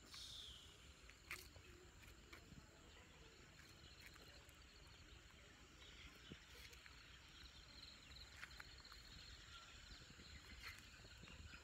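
Near silence: faint outdoor ambience with a few soft, scattered clicks.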